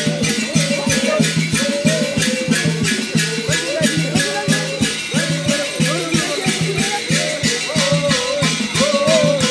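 Singing voices over a fast, even beat of shakers or rattles, with a steady low pulse beneath: dance music with percussion.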